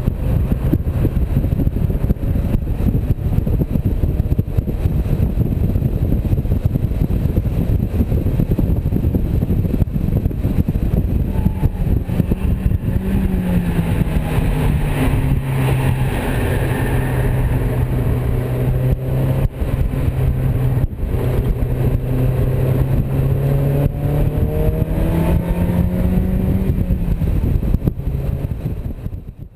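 Open-top Mazda MX-5 roadster driven on a race circuit: engine running under heavy wind rush through the open cockpit. From about halfway a steady engine drone holds one pitch, dipping slightly at first and climbing again near the end.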